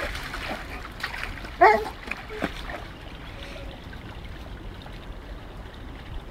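A dog splashing in a shallow stream, pawing and mouthing at a chunk of concrete on the bottom, with water splashing and trickling. A short loud cry, the loudest sound, comes about a second and a half in, and the water noise is quieter and steadier after it.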